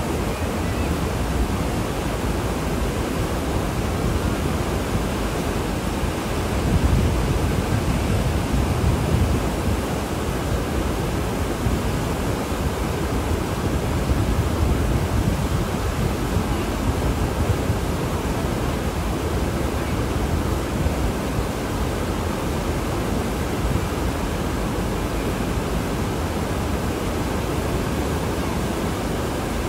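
Water rushing steadily below a dam, an even, unbroken hiss that swells a little louder for a few seconds about a quarter of the way in.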